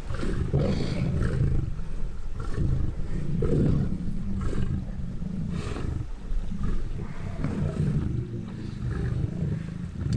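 Lions growling and snarling low and continuously as they feed together on a zebra carcass, with scattered short tearing and crunching noises from the meat and bone.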